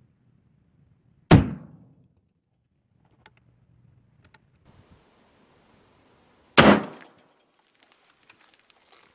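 Two black-powder rifle shots from a Pedersoli 1874 Sharps in .45-70, about five seconds apart, each a sharp crack with a short fading tail, with a few faint clicks in between.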